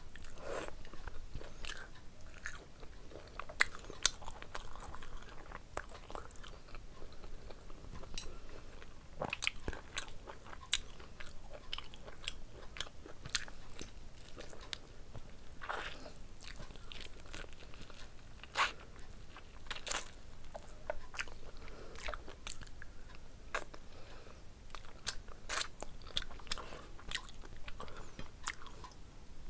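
Close-miked eating by hand: steady chewing and mouth sounds with many short, sharp crunches and smacks scattered throughout.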